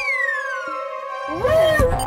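Cartoon falling-whistle sound effect, one long tone gliding down in pitch, over a held music chord. It ends in a soft thump of a landing about a second and a half in.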